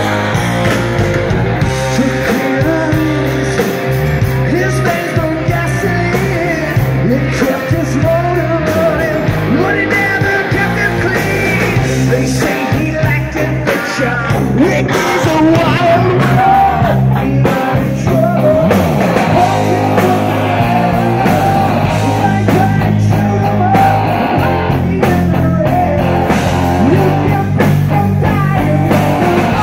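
Rock music with singing, loud and continuous.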